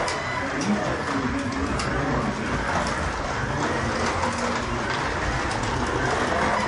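1/24 scale BMW slot car running laps on a plastic slot car track: a steady electric motor whir with the rattle of the car along the track slot, and small ticks.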